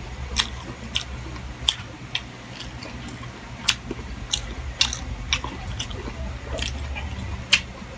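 Close-miked chewing and wet mouth smacks from a person eating chicken liver and gizzard adobo, about a dozen sharp, irregular clicks.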